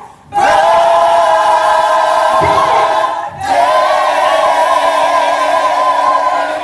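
A woman singing into a microphone, holding two long notes with a wavering vibrato, with a short break about three seconds in.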